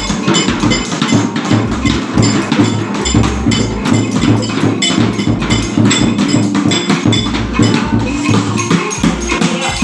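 Several children playing assorted percussion instruments at once, struck and shaken, in a dense clatter of overlapping hits with no common beat.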